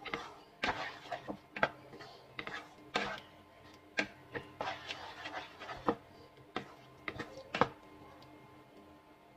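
Wooden spatula stirring thick cream sauce in a non-stick frying pan: irregular clicks, knocks and scrapes of wood against the pan, dying away near the end, over a faint steady hum.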